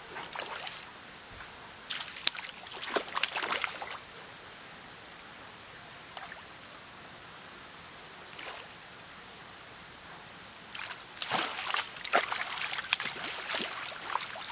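A hooked trout splashing and thrashing at the water's surface close to the dock as it is played to the landing net. The splashing comes in two irregular bursts, about two seconds in and again from about eleven seconds, with quiet between them.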